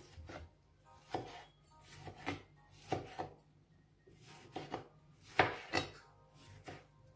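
Kitchen knife slicing a tomato on a cutting board: about a dozen uneven taps of the blade against the board, with a short pause midway.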